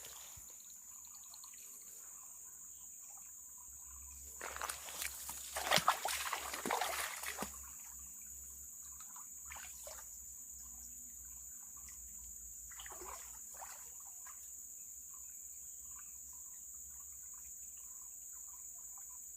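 Water trickling along a small river under a steady high insect drone, with a louder burst of noise about four seconds in that lasts roughly three seconds.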